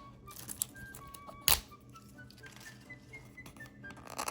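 Scattered sharp clicks and taps of hands working at a hard-to-open toy mystery package, the loudest click about a second and a half in.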